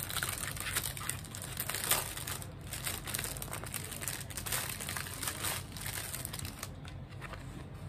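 Packet of quilting gloves being crinkled and pulled open by hand: a dense run of small crackles, thinning out near the end.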